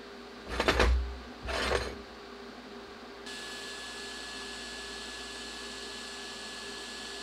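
Two short handling noises, then a TIG welding arc struck on a penny on steel plate, running as a steady hiss with a thin high whine.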